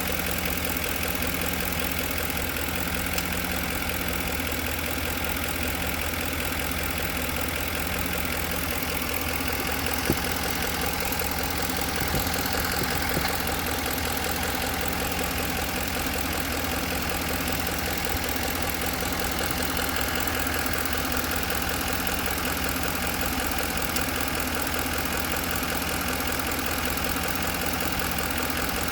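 2010 Ford F-150 engine idling steadily with a knocking sound in its running, with one sharper click about ten seconds in.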